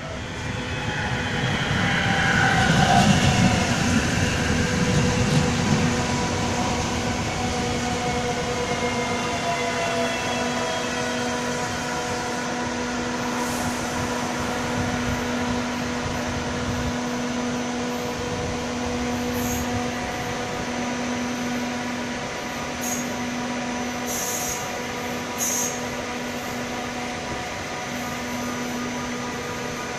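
Slovenian Railways Siemens Desiro electric multiple unit pulling in and braking to a stop: a falling whine over the first few seconds, loudest about three seconds in, then a steady hum from the standing train. A few short hisses come in the second half.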